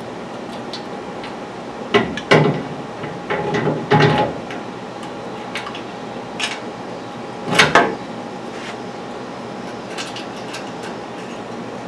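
Metal knocks and clatter of a steel front upper control arm and its alignment shims being fitted onto the frame's mounting studs, in several bursts about two to eight seconds in, with a few lighter ticks later. A steady hum runs underneath.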